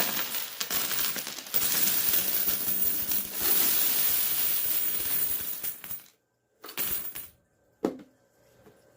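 A mass of loose vending-machine coins clattering and clinking steadily as they are counted, cutting off suddenly about six seconds in. A short rattle and a single click follow.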